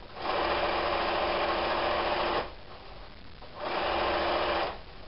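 Electric domestic sewing machine stitching a seam through quilt fabric in two runs: a steady run of about two seconds, a pause, then a shorter run of about a second.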